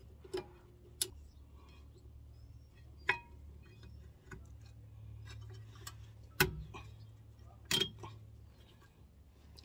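About five sharp metallic clicks and taps, spaced irregularly, as a new rear brake pad and its clips are seated in the caliper bracket of a Toyota Sienna. The loudest tap comes a little past the middle, over a faint steady low hum.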